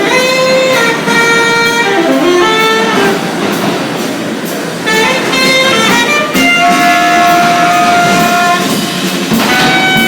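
Music: a melody of long held notes that changes pitch every second or so, over a steady background noise.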